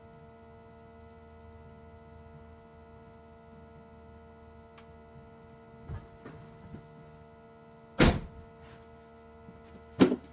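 Steady faint electrical hum with a few light knocks, then two loud sharp thumps near the end, as the power steering is turned by hand over to full lock with the engine off.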